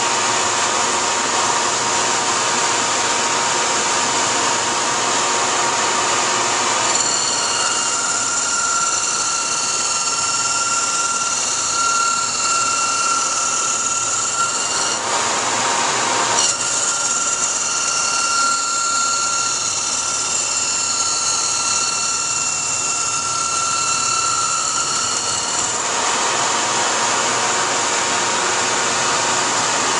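Laguna CNC wood lathe turning a baseball bat: the cutting spindle gives a steady high whine as it cuts the spinning wooden blank, over the continuous rush of the dust collector and the lathe. The whine starts about seven seconds in, breaks off briefly around the middle, and stops about four seconds before the end.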